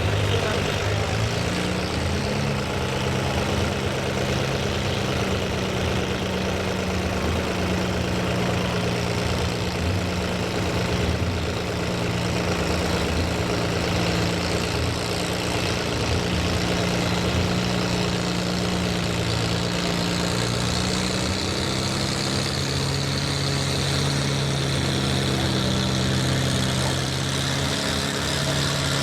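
Farm tractor engine running steadily at near-constant speed, its pitch stepping slightly a few times.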